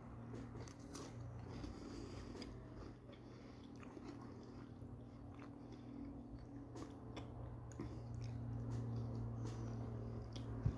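Faint chewing of a caramel Gocciole chocolate-chip biscuit softened in water, with small crunches and mouth clicks scattered through, over a steady low hum.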